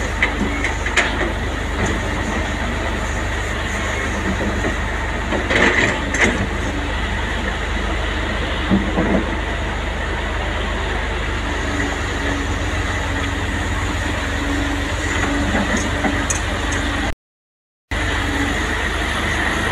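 Diesel engines of two crawler excavators, a Volvo and a Komatsu, running steadily under hydraulic work, with scattered clanks and knocks of bucket and rock; the loudest cluster of knocks comes about five and a half to six seconds in. The sound cuts out completely for under a second near the end.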